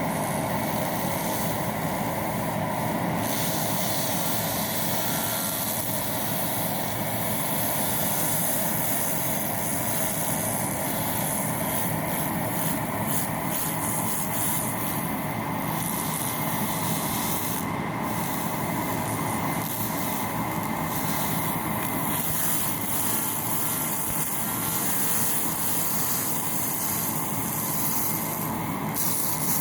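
Handheld laser cleaning head ablating welding soot off a weld seam: a steady, loud rasping hiss. The highest part of the hiss briefly drops away a few times, about two seconds in, around the middle, and near the end.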